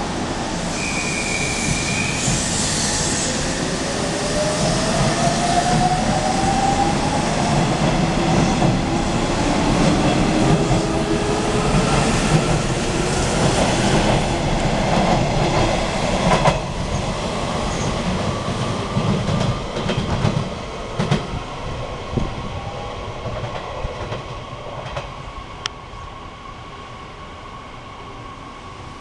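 Nishitetsu 6050-series seven-car electric train pulling out: a motor whine rises in pitch as it gathers speed, over the rumble of the wheels. Sharp clacks from wheels on the rails come as the last cars pass, and the sound peaks midway, then fades as the train draws away.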